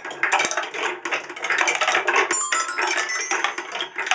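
Marbles clattering and rolling through a homemade wooden marble run, a dense stream of rapid clicks and rattles, with a brief ringing tone a little over halfway through.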